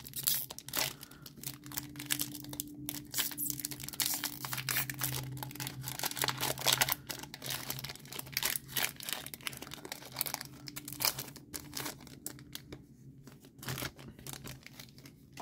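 Foil wrapper of a Pokémon booster pack being torn open and crinkled by hand as the cards are pulled out. The crackling goes on for about twelve seconds, then dies down.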